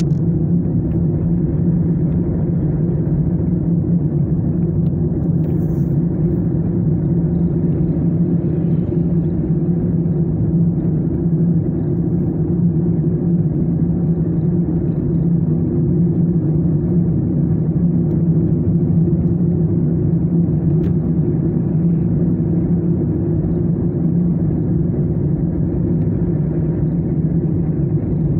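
Car driving at a steady pace, heard from inside the cabin: an even, low drone of engine and tyre noise that stays at the same loudness throughout.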